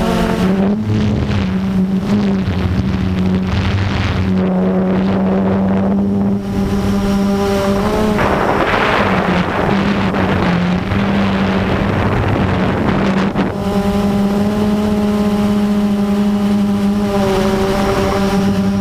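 Blade 350QX quadcopter's brushless motors and propellers humming steadily in flight, the pitch shifting a little as the throttle changes, heard from the GoPro on board. Wind buffets the microphone, most strongly from about eight to thirteen seconds in.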